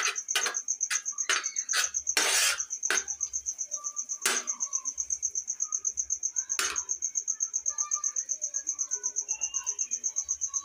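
A metal slotted spatula scraping and knocking against a tawa as an egg tikki mixture is stirred on it. The strokes come quickly, about two a second, for the first three seconds, with two more about four and seven seconds in. A cricket keeps up a steady high trill throughout.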